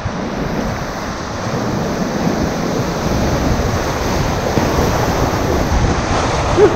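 River rapids rushing and churning around a raft as it runs through whitewater, a steady hiss of moving water with wind noise on the microphone.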